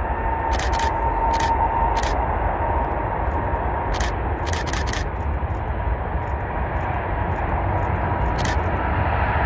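Canon EOS 700D shutter firing about nine times, in single shots and a quick run of three about halfway, close to the microphone. Under it a distant jet airliner's engines give a steady whine that edges up in pitch, with wind rumble on the microphone.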